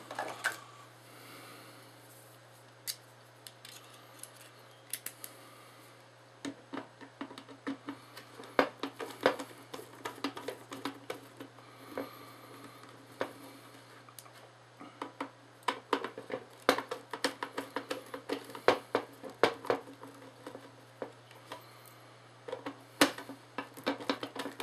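Small irregular clicks and taps of a screwdriver and screws against a floodlight housing as it is unscrewed and taken apart, more frequent in the second half, over a steady low hum.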